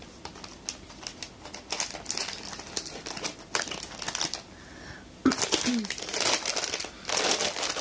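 Packaging crinkling and rustling in irregular bursts as a gift item is unwrapped by hand.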